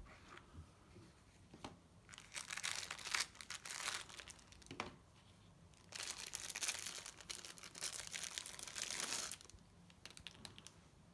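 Thin clear plastic wrapping crinkling and crackling as it is pulled open and handled, in two long bouts with a brief pause between them.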